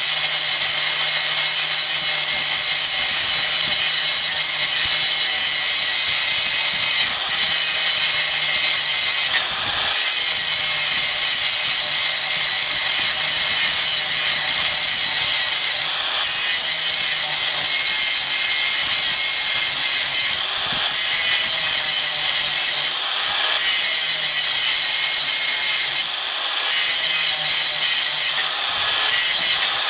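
Electric angle grinder grinding a sheared-off steel bolt flat where it sits in an axle: a loud, steady, hissing grind over the motor's hum. The grind dips briefly every few seconds, about seven times.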